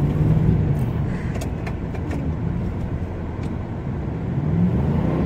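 Ford F-150 pickup's engine revving up and easing off, heard from inside the cab, as the truck tries to drive out of deep snow it is stuck in. The revs swell in the first second and climb again near the end.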